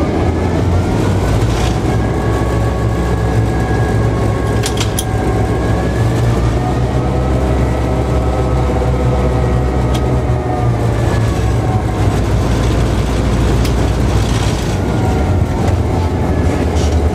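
EMD F3 locomotive's 16-cylinder 567 diesel engine running, heard from inside the cab as the locomotive moves, with a steady low rumble. A fainter whine rises and then falls in pitch through the middle, and there is a single sharp click about five seconds in.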